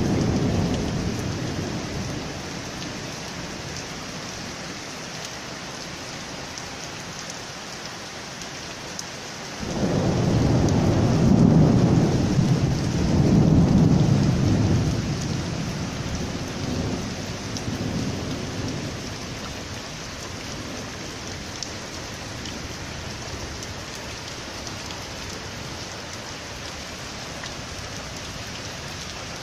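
Heavy downpour hissing steadily on paving during a thunderstorm. The tail of a thunder rumble fades at the start. About a third of the way through, a thunderclap breaks in suddenly, rolls in two swells, and dies away over the next several seconds.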